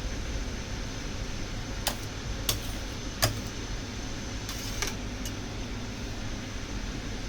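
A handful of light clicks and clinks, like tools or utensils being set down and handled, about two to five seconds in, over a steady fan-like hum.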